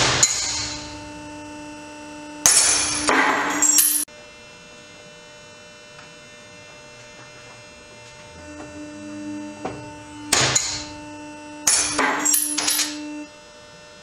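DMM O-shaped triple-action carabiner breaking under load on a break-test bed: a sharp crack, then the metal pieces clattering about two seconds later. The sequence comes twice, the second time over a steady machine hum.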